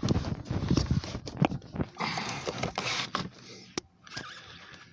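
Plastic knocking, rubbing and clicking as the instrument cluster is lifted out of its dashboard opening, with one sharp click about four seconds in.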